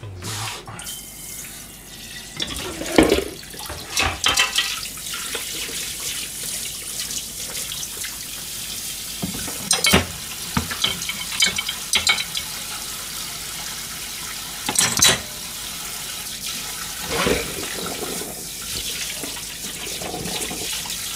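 Kitchen tap running steadily into the sink while plates are rinsed. Several clinks and knocks of crockery are heard as dishes are set into a drawer dishwasher's rack.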